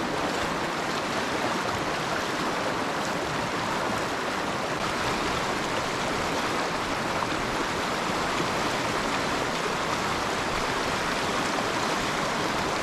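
Shallow, fast river rushing over rocks: a steady, even rush of flowing water.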